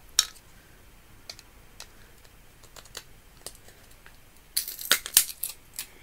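Sharp clicks and snaps of a plastic photocell light sensor being prised apart by hand: one loud snap just after the start, a few light ticks, then a quick flurry of clicks about five seconds in.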